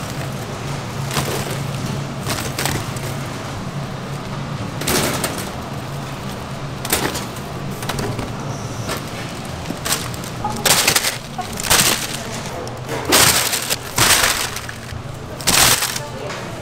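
Baked bagels being tossed by gloved hands into a wire basket, knocking against the metal mesh and each other in a series of irregular clatters, more often in the second half, over a steady low hum.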